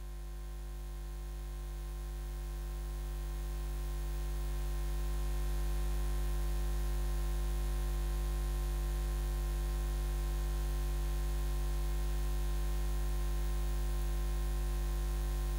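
A steady low hum with an even hiss over it, swelling over the first several seconds and then holding level.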